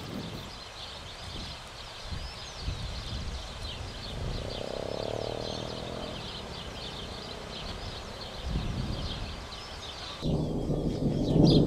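Many small birds chirping steadily in open countryside. About ten seconds in the birdsong cuts off suddenly and a louder, lower sound takes over.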